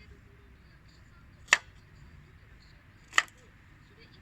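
Knife chopping on a cutting board: two sharp, slow strokes about a second and a half apart.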